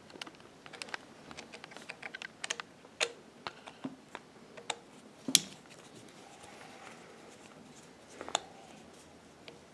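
Screwdriver working the set screw of an industrial sewing machine's upper thread tension assembly as the assembly is taken off: irregular small metal clicks and taps, the sharpest a single knock about five seconds in and a short cluster near the end.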